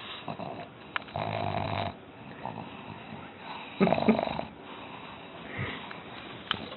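Black pug breathing noisily, with two longer, louder snore-like breaths about a second in and about four seconds in, the second with a fast rattle.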